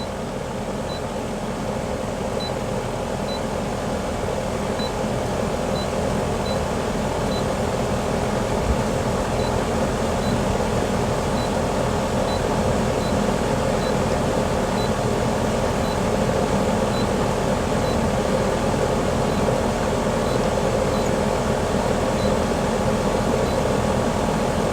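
Pool pump motor running steadily at the equipment pad, a constant hum and whir, with faint high ticks about once a second.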